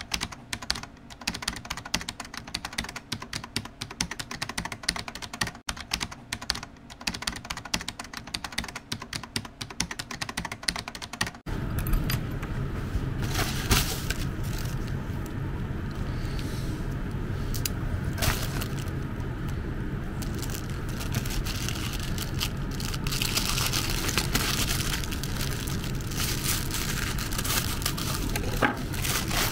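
Rapid, dense clicking for about the first eleven seconds. It cuts off suddenly, and then a plastic mailer bag is handled and torn open, crinkling and rustling in irregular bursts.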